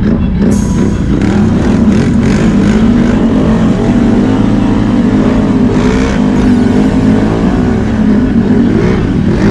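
Can-Am Renegade X mr 1000R ATV's V-twin engine, heard from on board while riding, fitted with an STM secondary clutch. The engine revs up and eases off again and again, its pitch rising and falling.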